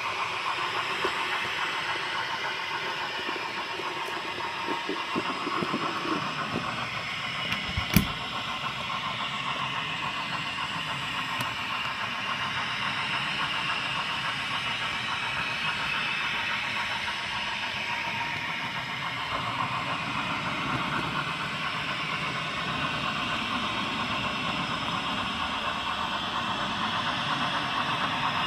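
HO scale model train running along the track: a steady whirring, rattling hiss of the wheels and motor, with one sharp click about eight seconds in.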